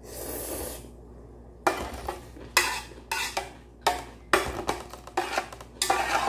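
Metal chopsticks scraping and clinking against a stainless pot as ramyeon noodles are picked out, in a run of short strokes about twice a second, after a brief slurp of noodles at the start.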